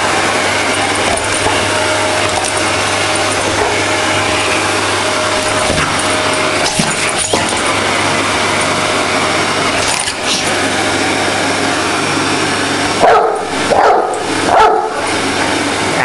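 Vacuum cleaner running steadily, with a low hum and a steady whine. Near the end a Dogue de Bordeaux barks three times at it.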